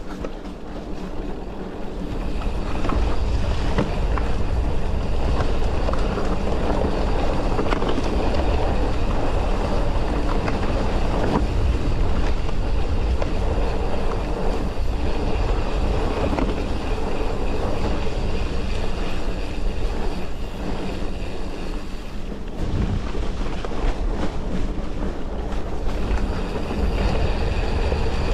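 Wind rushing over an action camera's microphone and tyre noise on a dirt forest trail while riding a mountain bike, a heavy, steady rumble that grows louder over the first couple of seconds as speed picks up.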